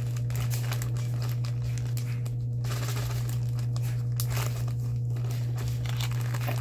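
Plastic packaging bags crinkling and rustling in irregular bursts as the parts of a diamond-painting kit are handled, over a steady low hum.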